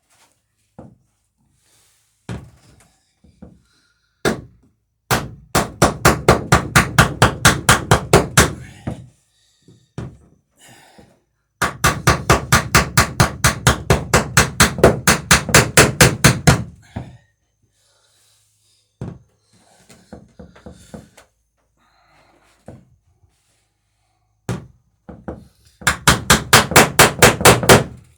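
Hammer peening over rivets in wooden boat planking: three long runs of rapid, even strikes at about six a second, with a few single knocks in between.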